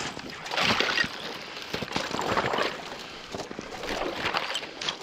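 Legs wading through a flooded swamp skinned over with ice: the ice sheet crackles and breaks and water sloshes with each stride, in three bursts.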